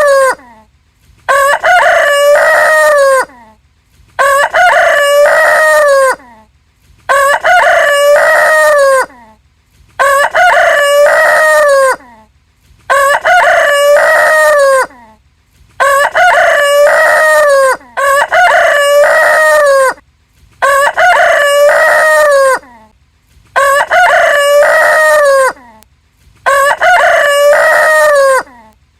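Rooster crowing, the same two-second cock-a-doodle-doo repeated about every three seconds, around ten times, with short silences between.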